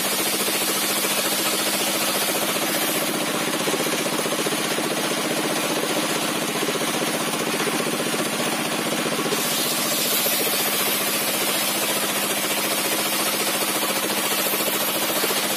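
Large circular saw with a 60 cm zigzag-toothed blade ripping a wooden beam into 2-inch boards, its engine running steadily underneath. The cutting hiss thins out from about three seconds in while the beam is drawn back off the blade, and comes back near nine seconds.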